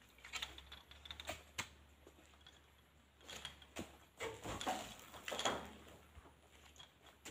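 Scattered knocks and dull thuds from oil palm fruit bunches being speared with loading poles and thrown up onto a truck's load, the loudest clusters a little past the middle.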